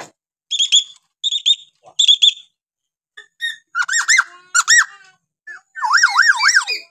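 Kalimantan hill myna (beo) calling in a varied run: three short paired high chirps, then a few loud arched whistles, and near the end a fast wavering whistle that swoops up and down about four times.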